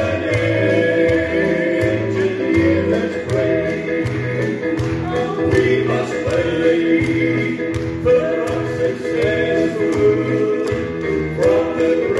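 Gospel trio of two men and a woman singing in harmony over instrumental backing with a steady beat.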